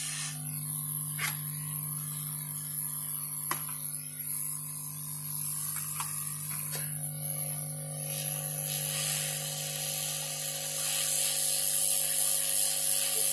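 Hot air rework station blowing with a steady hiss over a constant low hum, a few light clicks in the first several seconds. The hiss grows louder about eight seconds in.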